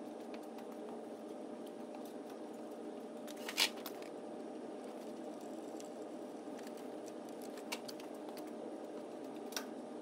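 Steady background hum with three short, sharp clicks of parts being handled in a car's engine bay, the loudest about three and a half seconds in.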